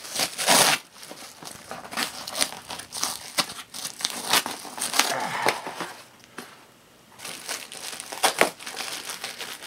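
Cardboard shipping box being torn open by hand, with bubble wrap crinkling inside. Irregular ripping and crackling, with a lull about six to seven seconds in.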